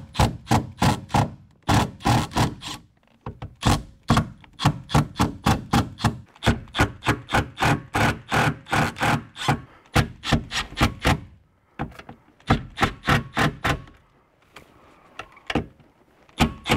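Rapid clicking and knocking, about four a second, from a Phillips screwdriver driving the sun visor's mounting screws up through the headliner into the roof. The clicks thin out about eleven seconds in and stop, with a few more near the end.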